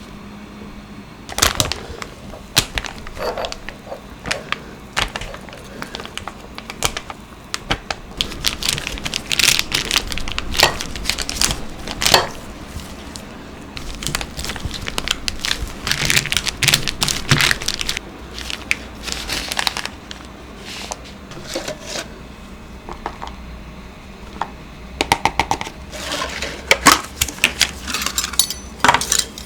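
Baking utensils and bowls handled in a kitchen: irregular clicks, taps and short scrapes, busiest in the middle and again near the end.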